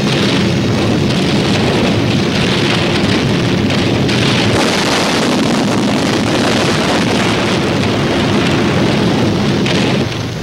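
Steady drone of a four-engine piston bomber's engines under a dense rushing noise, easing off slightly near the end.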